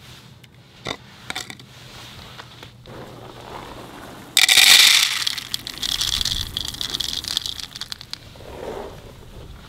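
Dry cat kibble poured from a plastic container into a bowl: a sudden loud rush of rattling pellets about four seconds in that runs on for several seconds, after a few small clicks.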